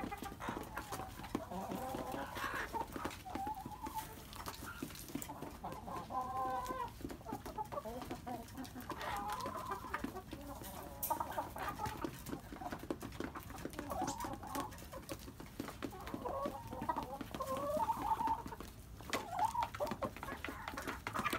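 Domestic hens clucking, short pitched calls that come on and off again and again.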